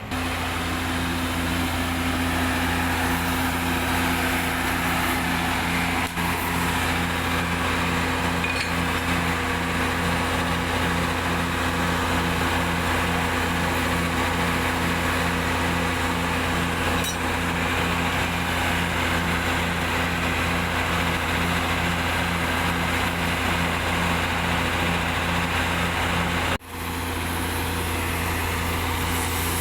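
An engine running steadily at constant speed, with a deep hum and an even low pulse about twice a second. It breaks off briefly near the end and picks up again.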